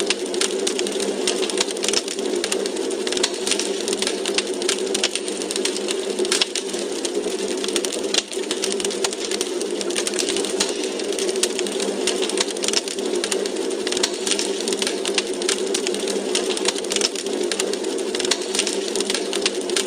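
Wood fire burning in a fireplace, crackling continuously: dense, irregular pops and snaps over a steady low rush.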